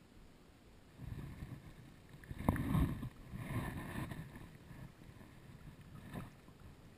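Shallow stream water splashing and sloshing as hands work in it. It comes in irregular bouts and is loudest about two and a half seconds in.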